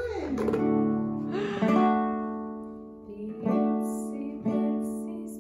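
Acoustic guitar strummed in slow chords, four strums, each chord left to ring out and fade before the next.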